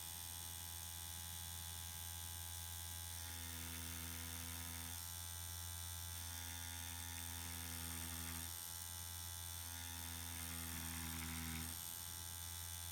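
Permanent-makeup machine running with a steady low electric hum; a higher buzzing tone comes in three times, for about two seconds each.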